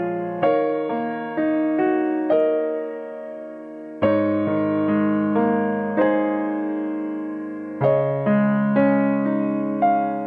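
Background piano music: slow chords and single notes, each struck and left to ring and fade.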